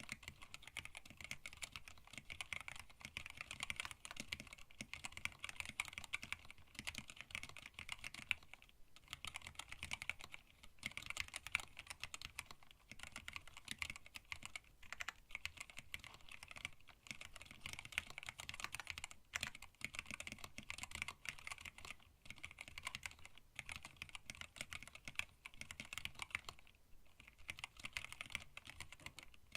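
Continuous typing on a hand-wired split mechanical keyboard with Zeal Tealios linear switches, black PBT keycaps and an acrylic case. The keys make a quick run of clacks, broken by a few short pauses.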